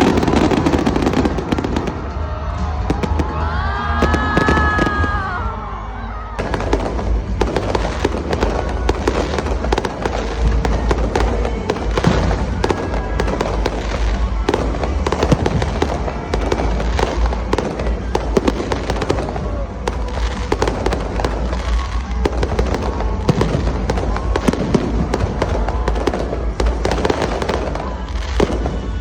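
Fireworks display going off continuously, a dense run of bangs and crackling over a deep rumble, with music playing alongside.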